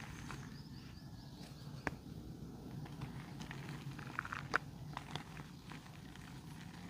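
Chunks of red mud or dirt being crumbled and crushed, giving scattered small crunches and crackles, with one sharper crack about four and a half seconds in.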